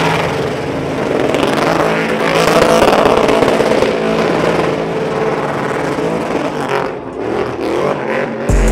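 Pickup truck engine running hard at high, steady revs, with a brief dip about seven seconds in.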